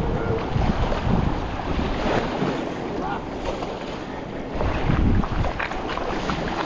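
Wind buffeting the microphone over small waves lapping, a steady rushing with gusts.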